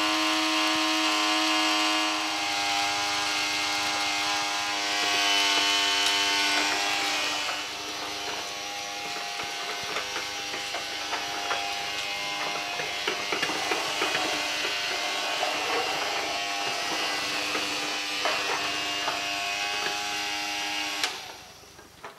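Small battery-powered motor of a Casdon toy Dyson DC14 vacuum cleaner running its cyclone feature: a steady whine, with the small plastic pellets rattling as they whiz round inside the clear bin. The motor is switched off and stops near the end.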